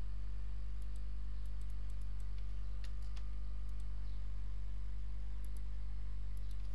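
Computer keyboard keystrokes, about a dozen sharp clicks in small irregular clusters, over a steady low hum.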